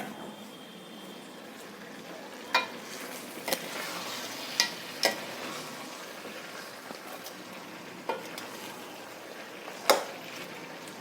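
A spoon stirring a thick, sizzling chicken curry masala in a pot, clanking against the pot about six times over a steady frying hiss.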